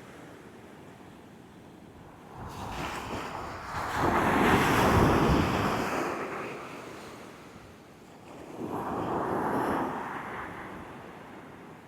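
Heavy surf breaking and washing ashore, mixed with strong gusting wind buffeting the microphone. The noise swells loudly twice, about four and nine seconds in, then falls back.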